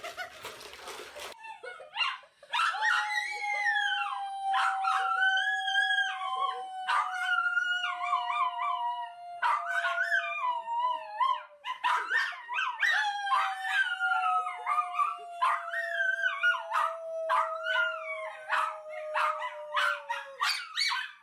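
Dog howling in long wavering notes that rise and fall in pitch, over a long steady held tone that slowly sinks, heard twice. A short burst of noise comes first.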